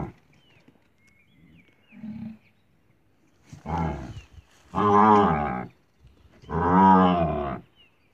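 Young cow bellowing three times in the second half, each call longer than the last, the last about a second; these are distress calls, with its head trapped in a hollow in a tree trunk.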